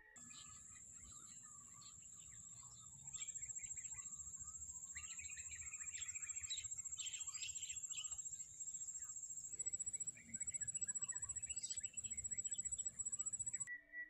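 Wild birds chirping in the tree canopy, many short calls that grow busier a few seconds in, over a steady high-pitched whine that pulses on and off in the second half.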